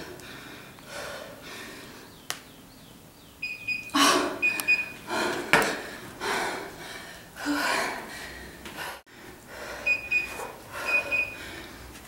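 A woman breathing hard under exertion, with forceful exhalations and gasps every second or so. Two runs of short, high electronic beeps come a few seconds in and again near the end, the pips of a workout interval timer.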